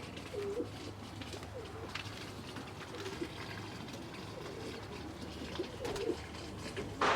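Domestic pigeons cooing: several short, low coos spread through, with a few faint clicks and one brief, louder noise near the end.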